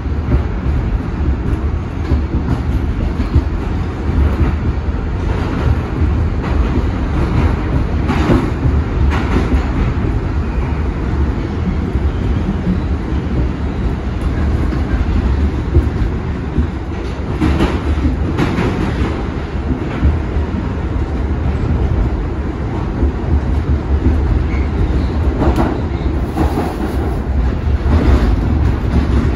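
R62A subway car running at speed through a tunnel, heard from inside the car: a loud, steady rumble of steel wheels on rail with scattered clacks over the rail joints.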